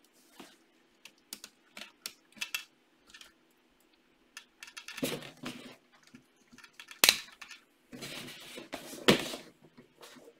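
Plastic LEGO pieces being handled and pressed onto a LEGO Mindstorms robot: scattered light clicks and rattling, with a sharp snap about seven seconds in and another about nine seconds in.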